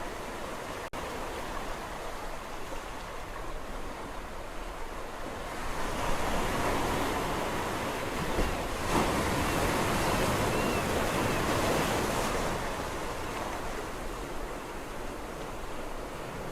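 Sea waves on a shore: a steady wash of surf, with one wave swelling louder about six seconds in and falling back a little after twelve seconds.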